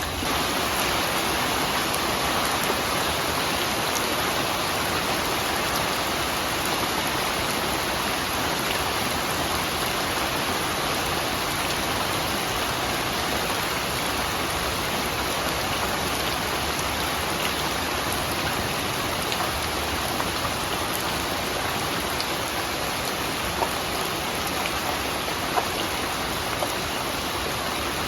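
Steady rain falling, an even hiss, with a couple of single drops ticking out sharply near the end.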